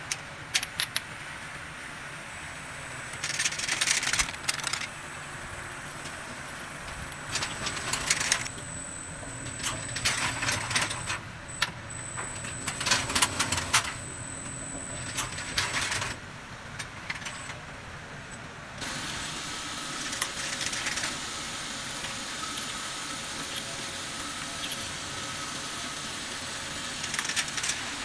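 Small amber glass bottles clinking and rattling against each other in bursts as a rotary feeding turntable and a bottle washing machine move them, over a steady machine hum. About two-thirds of the way through, a steady hiss sets in, the compressed air of the air bottle washer blowing.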